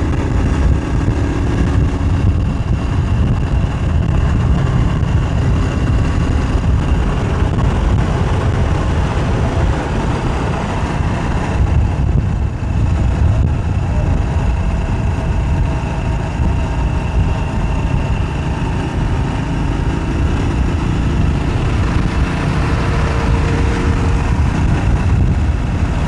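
Road traffic moving close alongside a bicycle: car, pickup and motorcycle engines with tyre noise, as a loud, steady low rumble.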